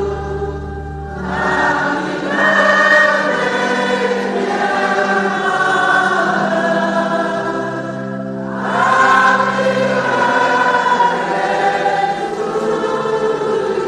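A choir singing a slow sacred hymn to Mary in sustained chords, with a new phrase swelling in about a second in and another past the halfway point.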